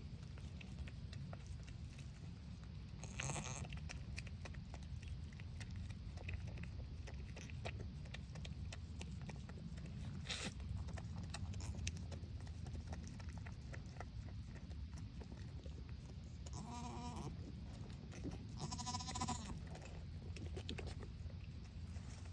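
Goat bleating twice, two short wavering calls about two seconds apart, over a low steady rumble with scattered rustles and clicks.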